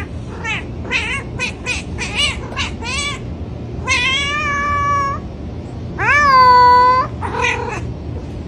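Domestic cat meowing: a quick run of short meows, then two long drawn-out meows, the second the loudest, and one more short meow near the end.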